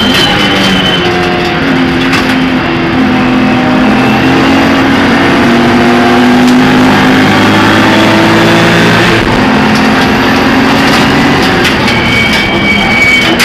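Race car engine heard from inside the stripped, roll-caged cabin, pulling hard with its note climbing steadily for several seconds. About nine seconds in the pitch drops sharply, then starts climbing again.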